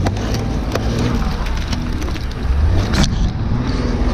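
Car engine running under throttle as the car, stuck in deep snow, is pushed and rocked to get it free, with a few knocks.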